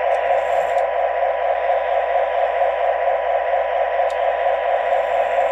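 O gauge model diesel locomotives running with their onboard electronic sound systems on, a steady tinny engine drone from small speakers that switches on suddenly at the start.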